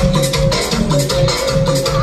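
Loud Latin dance music from a party sound system, with a steady beat, pulsing bass and a repeated held melody note.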